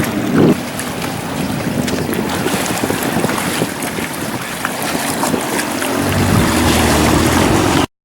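Kawasaki STX-12F jet ski running on the water, its engine under the rush of water and wind buffeting the microphone. The sound cuts off abruptly near the end.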